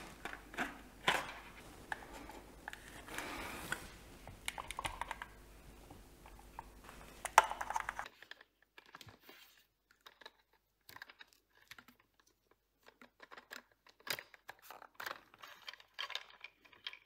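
Light clicking and tapping of 3D-printed plastic parts handled while a hot glue gun is worked on the model tank's body. About eight seconds in the room hum cuts out and only sparse faint clicks remain.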